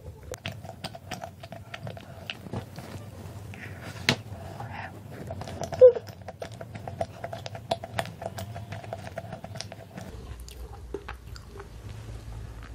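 Mouth sounds of someone eating moist carrot cake: soft, wet chewing with many small irregular clicks.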